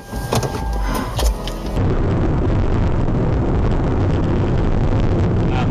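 Steady road and engine noise of a moving vehicle, starting abruptly about two seconds in. Before it come a faint steady tone and a few low thumps.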